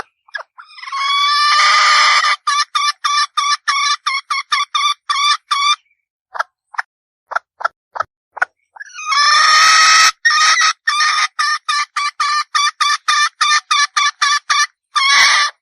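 Red junglefowl hen calling: a drawn-out harsh note breaking into a fast, even run of short clucks, about four a second. The pattern comes twice, with a few scattered single notes between.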